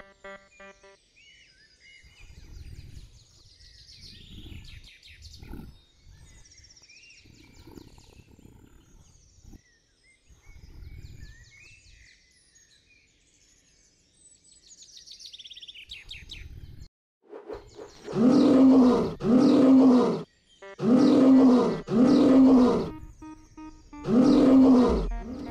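Cartoon lion roaring about five times in quick succession near the end, loud and drawn out: the roars of a lion trapped in a rope net. Before that, quiet forest ambience with faint bird chirps and a few soft thuds.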